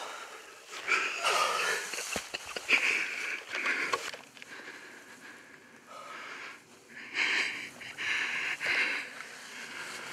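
A person breathing hard close to the microphone, in wheezy breaths that come in two clusters: about a second in and again near the end.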